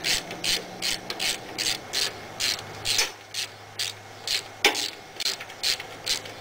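Hand socket ratchet wrench clicking with each back-swing, about two or three strokes a second, as it runs down a bolt holding the lawn tractor's steering gear in place.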